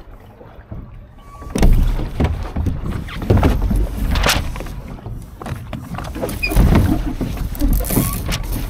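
Water splashing and lapping against a Laser dinghy's hull in irregular surges, starting about a second and a half in after a quieter start.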